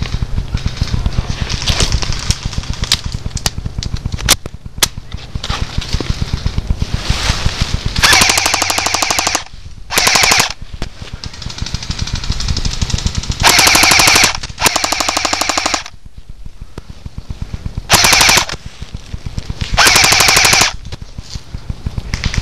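Battery-powered airsoft guns firing on full auto: a steady stream of rapid clicking. Six louder bursts, each about a second long, come from a gun close by.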